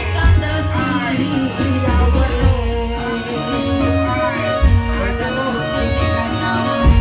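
Indramayu reog music: heavy, uneven drum beats under a sung melody with held instrument tones.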